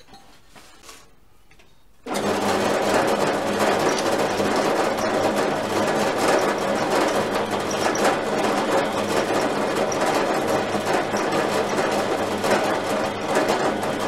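Bench drill press running and drilling into a steel piece, a steady motor hum under a dense cutting noise. It starts suddenly about two seconds in, after a faint quiet stretch.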